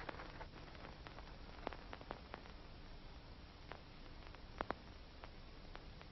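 Faint steady hiss of an old optical film soundtrack, with scattered sharp crackles and pops. The loudest is a quick double pop a little past the middle.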